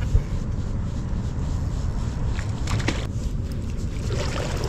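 Wind buffeting the microphone in a low, uneven rumble, with a few brief ticks about two and a half to three seconds in.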